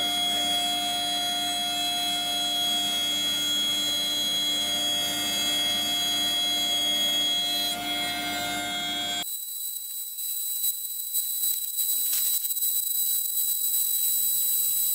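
DIY CNC router running a cut, with a steady whine of several tones from the machine. About nine seconds in the sound changes suddenly: the lower tones drop away, leaving a high whine and hiss.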